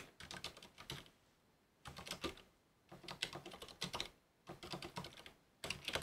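Computer keyboard typing in short bursts of rapid key clicks with brief pauses between them.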